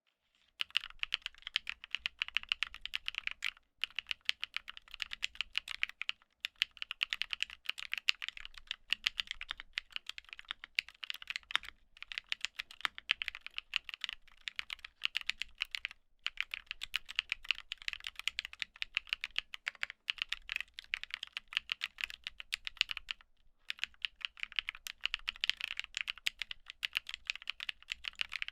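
Typing on a MonsGeek M1 mechanical keyboard fitted with Durock Black Lotus linear switches: fast, continuous runs of keystroke clacks, broken by brief pauses every few seconds.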